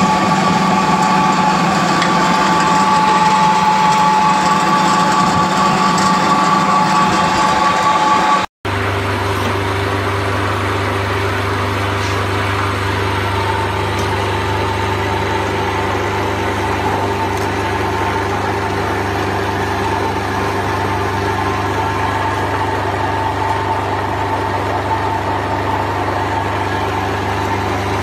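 Small flat-die feed pellet mill running steadily as it presses out pellets: a continuous machine hum with a steady whine over it. About eight seconds in the sound cuts out for an instant and resumes as a deeper, steady hum.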